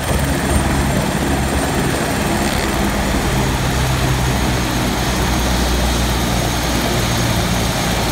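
Eurocopter Écureuil helicopter running on the ground: a steady low rotor and engine hum under a thin, high turbine whine that slowly drops in pitch.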